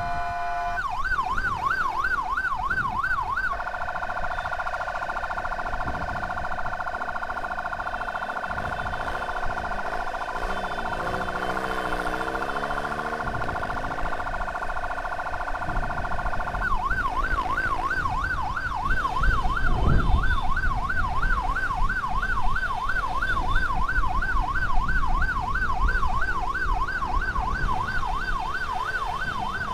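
Emergency vehicle siren in a fast yelp, switching a few seconds in to a long steady tone, then back to the fast yelp for the rest, over the rumble of traffic and wind.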